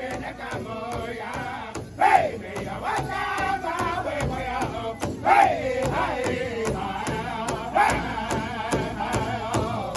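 Powwow drum group singing an intertribal song: several men chanting in high voices over a steady beat of many sticks striking one large hide-covered powwow drum together. The singing swells loud and slides down in pitch about two seconds in and again about five seconds in.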